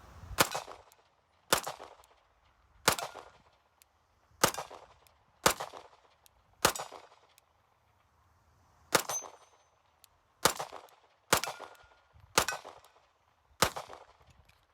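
CZ P01 Omega 9mm pistol firing eleven shots at a steady, unhurried pace of about one a second, each with a short ringing tail, with one pause of about two seconds midway.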